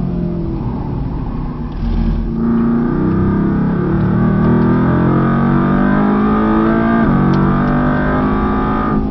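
Mercedes-AMG GT R's twin-turbo V8, heard from inside the cockpit. It runs low and uneven under braking into a corner, then pulls hard out of it with its pitch climbing, drops sharply at an upshift about seven seconds in, and climbs again.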